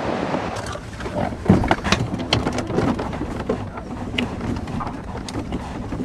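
Wind rumbling on the camera microphone, with scattered sharp clicks and knocks through most of the stretch and faint snatches of distant voices.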